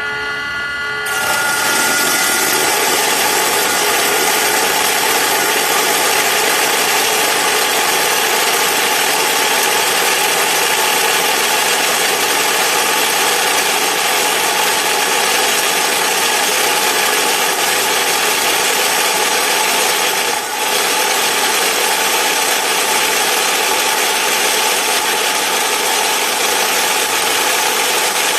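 Low-speed cut-off saw with a carbide-tipped blade running, then cutting into metal about a second in: a loud, steady cutting noise with a faint whine, easing briefly about two-thirds through.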